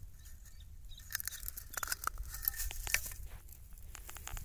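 Crackling and clicking of dry grass and freshwater mussel shells being handled, with a cluster of sharp clicks in the middle, over a low steady rumble.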